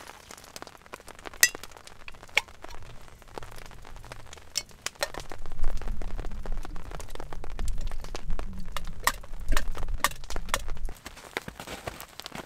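Glass canning jar clinking and knocking against a metal camp pot as home-canned moose meat is shaken out into it. A run of knocks over a low rumble comes from about five seconds in until near the end.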